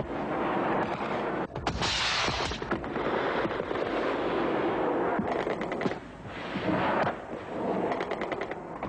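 Battle field audio: heavy blasts and rapid gunfire, with a loud burst about two seconds in and strings of quick shots around five and again around eight seconds in.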